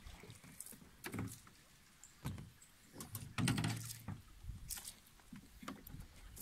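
Scattered knocks, bumps and rustles from an angler handling rod and fly line in a small open boat, with one heavier bump about three and a half seconds in.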